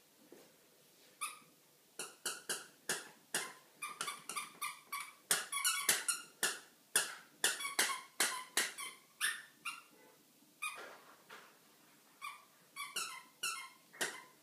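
A puppy's high-pitched yelps, short squeaks repeated several times a second in quick runs, busiest in the middle with a brief pause near the end.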